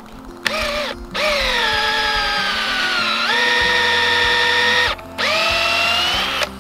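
Cordless drill boring a sap taphole into a maple trunk, its motor whining in three runs: a short burst about half a second in, a long run whose pitch drops about three seconds in as the bit bites into the wood, then a last run near the end as it is backed out to clear the chips.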